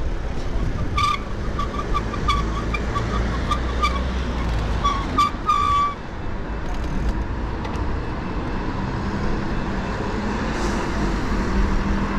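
Street traffic and wind on the microphone of a bike-mounted action camera while riding, with a run of short high-pitched squeaks during the first half, the last one longer.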